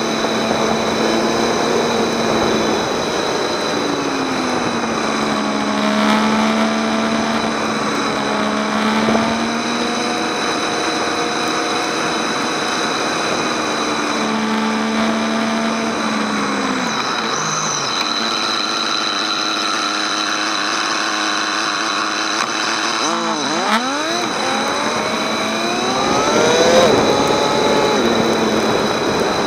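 Motorcycle engine running at road speed under steady wind rush. The revs drop and rise several times as the rider slows and accelerates, with a quick dip and climb about three-quarters of the way through and rising revs near the end.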